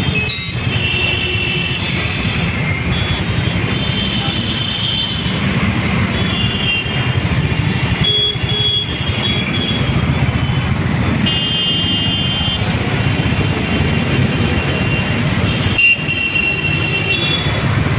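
Dense, slow-moving city traffic: a steady rumble of car, truck and motorbike engines, with vehicle horns honking again and again throughout.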